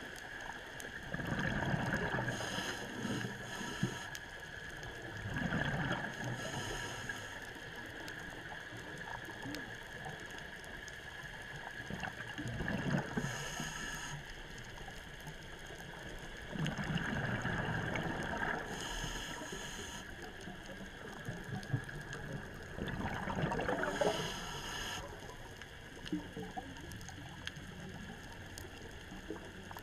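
Underwater breathing of a scuba diver through a regulator: about five breaths, one every five to six seconds. Each breath is a low gush of exhaled bubbles and a higher hiss of air through the regulator.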